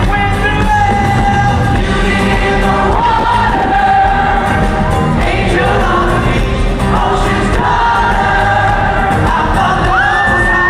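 Live pop-rock band playing, with the lead singer and a large group of young women singing along together on stage; loud, with a long high note held near the end.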